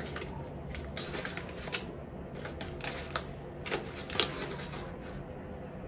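Small cardboard lipstick boxes handled and knocked together in the hands: scattered light clicks and taps, the sharpest few about three to four seconds in.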